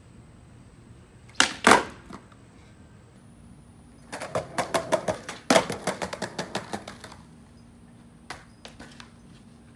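Skateboard clattering on concrete patio pavers: two sharp clacks about a second and a half in, then from about four seconds in a run of quick clicks, several a second, with one louder slap among them, lasting about three seconds.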